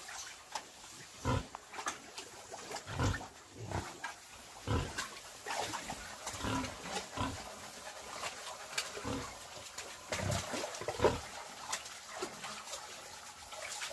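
Pigs grunting in a pen: short, low grunts at irregular intervals.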